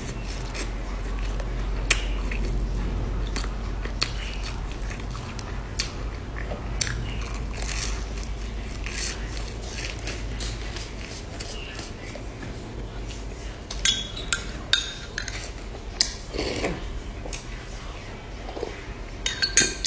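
Close-miked chewing of crumb-coated fried bread, with wet mouth sounds and scattered small clicks, over a steady low hum. A cluster of sharper clicks comes about two-thirds through, and more near the end.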